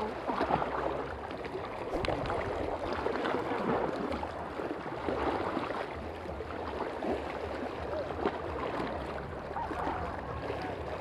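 Sea water washing and gurgling over shoreline rocks, with small irregular splashes throughout.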